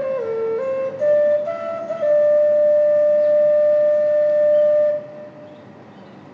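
Native American flute playing a slow melodic phrase: a few short notes stepping down and back up, then one long held note that stops about five seconds in, followed by a pause.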